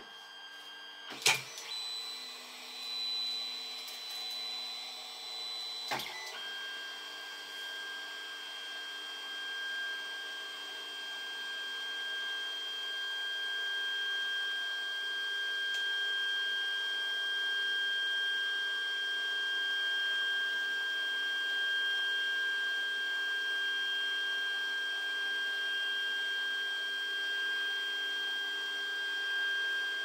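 Creality Ender 3 3D printer with the 8-bit V1.1.4 board starting up and printing: a click about a second in, a brief high tone, another click around six seconds, then a steady high-pitched whine from the stepper motors over a low steady hum, slowly growing louder. The whine is typical of the 8-bit board's non-silent stepper drivers.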